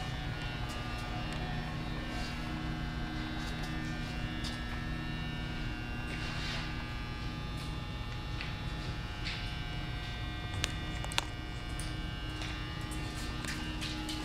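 Steady electrical hum made of several held tones over a low background drone, with a few short clicks scattered through it, the sharpest about eleven seconds in.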